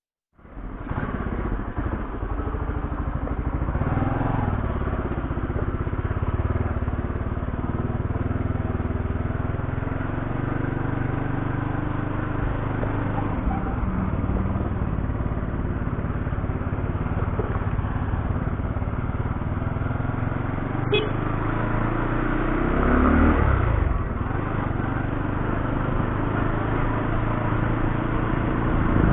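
Motorcycle engine running steadily under way, with wind rumble, picked up by a lapel mic inside the rider's helmet. About three quarters of the way through there is a brief click, then the engine note rises and falls.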